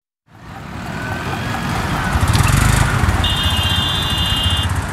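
Road traffic fading in: a vehicle engine running with a low, pulsing rumble. About three seconds in, a steady high-pitched beep lasts about a second and a half.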